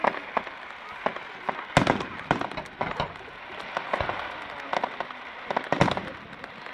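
Fireworks going off: an irregular string of bangs and sharp cracks from bursting shells, some echoing, the loudest about two seconds in and again near the end.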